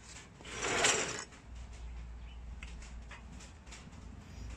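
Wooden tool drawer pulled open with a scraping slide about half a second in, lasting under a second, followed by faint clicks of tools being handled.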